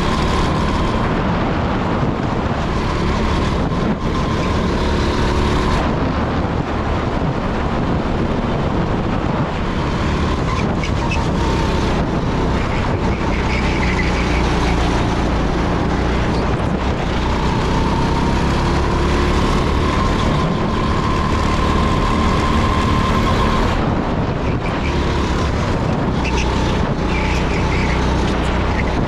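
Rental go-kart engine running hard at lap speed, heard from the driver's seat with wind rushing over the camera. The engine note climbs steadily on a straight and drops sharply about three-quarters of the way in as the throttle comes off for a corner.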